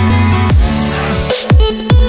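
Electronic dance music: sustained synth chords over deep kick drums that drop sharply in pitch, without vocals.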